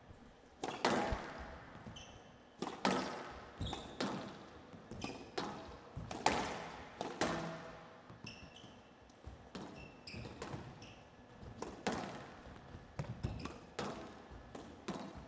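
A squash rally: the ball struck by rackets and smacking off the walls of a glass show court, sharp echoing hits about once a second, with brief high squeaks of players' shoes on the court floor.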